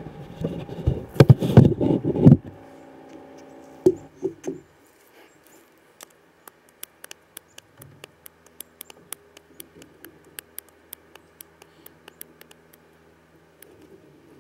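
A camera being handled and set down on a wooden deck, with rubbing and knocking, then a couple more knocks. After that comes a long run of sharp, quick clicks at about three a second.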